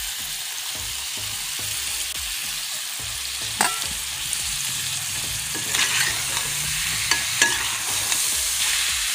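Potatoes and eggs sizzling steadily in ghee in a metal pot, while a slotted metal spoon stirs through them, with a few sharp scrapes or knocks against the pot from about three and a half seconds in.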